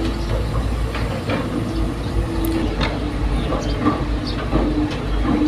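Excavator at work: its diesel engine runs steadily under irregular metallic clanks and short squeaks from the machine.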